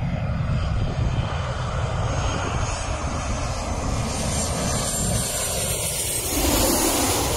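Boeing 737 airliner's jet engines on landing approach, a rushing roar that grows louder as the plane comes in low overhead, peaking near the end with a falling pitch as it passes.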